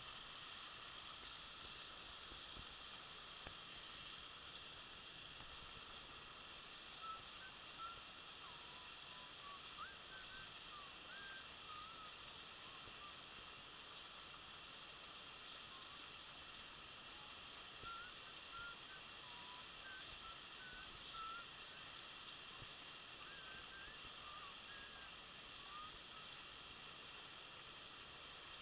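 Faint steady rush of a waterfall, with scattered short, faint chirps from about seven seconds in.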